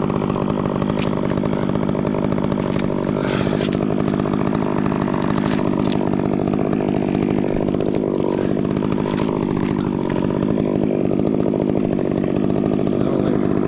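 Chainsaw running at high speed, cutting into the trunk of a dead sugar pine. Its pitch sags twice as the chain takes the load.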